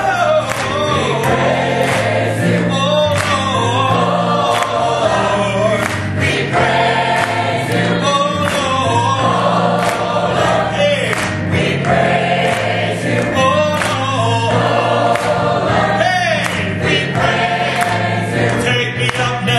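Adult gospel choir singing in full harmony, accompanied by piano.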